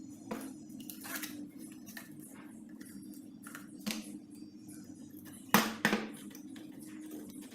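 Small metal tools and parts clinking and knocking while being handled, with two sharper knocks close together about five and a half seconds in, over a steady low hum.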